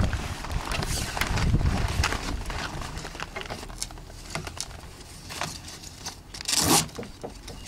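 Furled sailcloth rustling and crinkling in the hands as a sail tie is wrapped around the sail bundle and pulled snug, in short irregular strokes with one louder rustle near the end.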